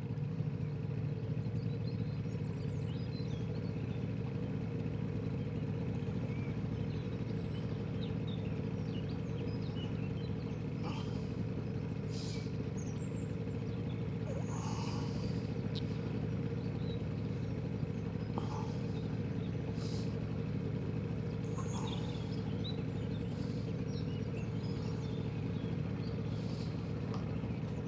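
Johnson 9.9 hp outboard motor running steadily at low speed, pushing the boat along slowly. Birds chirp now and then over it.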